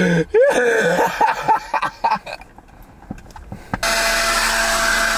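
Cordless leaf blower switched on about two-thirds of the way in: a sudden loud, steady rush of air with a constant whine. Before it, a man's short shouts and gasps with a few knocks.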